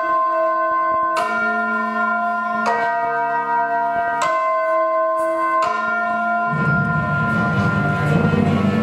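Church bells tolling, a new stroke about every one and a half seconds, each leaving several tones ringing on. About two-thirds of the way through, low music with bass and strings comes in under the bells.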